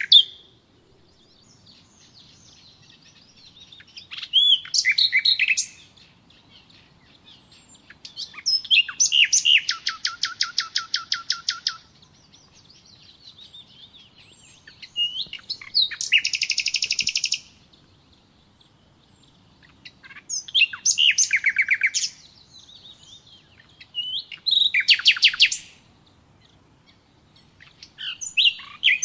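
A songbird singing. It gives a series of high phrases with fast trills of rapidly repeated notes, each phrase lasting one to three seconds, with short pauses between them.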